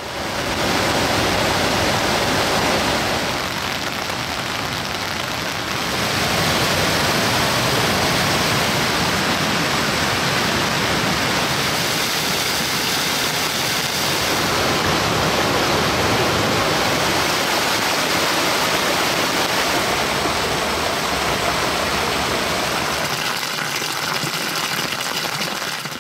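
Mountain stream rushing over rocks: a steady, loud rush of white water, dipping slightly about three seconds in and swelling again at six.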